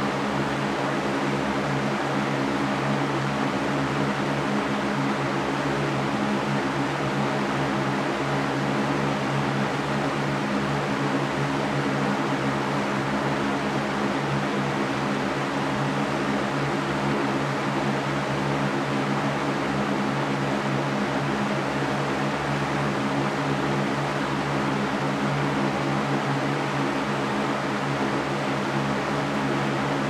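Electric fan running steadily: an even rush of air with a low, steady hum under it.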